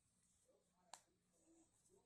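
Near silence with a single faint click about a second in, from a Rubik's cube face being turned.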